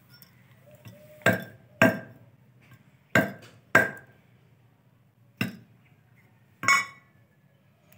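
A large iron chopping knife striking down through dried woody sticks onto a wooden log, six sharp chops, the first four in quick pairs, each with a short metallic ring.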